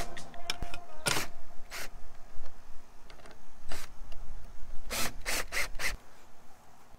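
Several short rubbing and scraping knocks from a cordless drill-driver and hands working the sheet-metal patch over a car's door-mirror hole. They are spread out at first and bunch together about five seconds in, over a low rumble that fades near the end.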